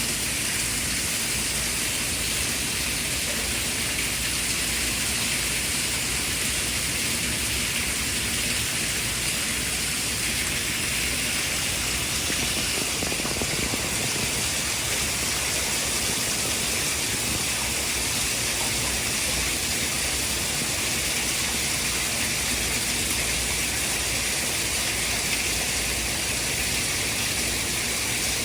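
Steady, unchanging white-noise hiss, bright and even like rushing water, played as a sleep aid for a baby.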